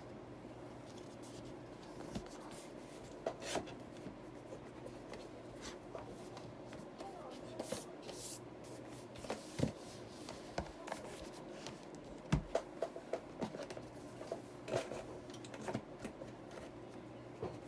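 Scattered light clicks, taps and rubbing of small objects being handled, with a couple of louder knocks, over a steady low hum.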